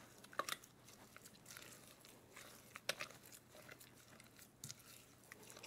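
Faint, soft squishing of a rubber spatula stirring milk and cornstarch into lumpy creamed butter and sugar in a glass bowl, with a few light taps of the spatula against the glass.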